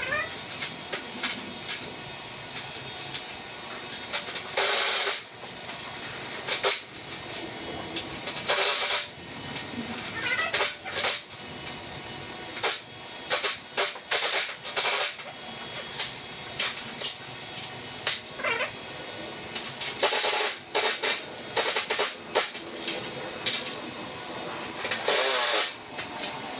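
A domestic cat meowing now and then, mixed with several short, loud bursts of hissing noise and scattered clicks.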